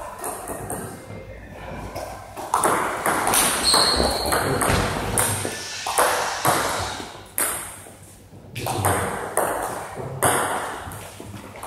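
Table tennis rally: the ball clicking sharply off the players' bats and bouncing on the table in quick, uneven succession, each hit ringing briefly in the hall.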